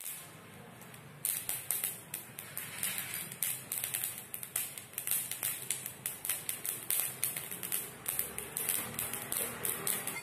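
Mustard seeds spluttering in hot oil: a dense, rapid crackle of pops that starts about a second in, the sign that the oil is hot enough for tempering.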